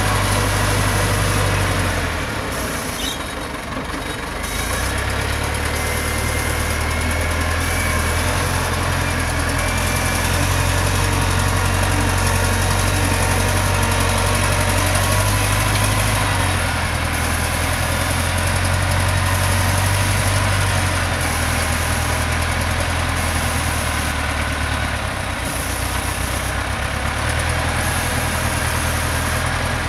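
Caterpillar 930 wheel loader's diesel engine running steadily as the machine drives and lifts its loaded bucket. The engine note shifts with the load and eases off briefly a few seconds in and again near the end.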